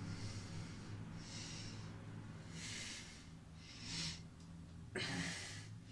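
A man breathing audibly between lines, about five breaths in a row, over a faint low steady hum.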